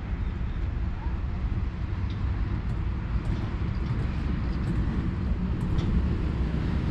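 Steady low rumble of road traffic on the avenue beside the promenade, with a few faint high ticks.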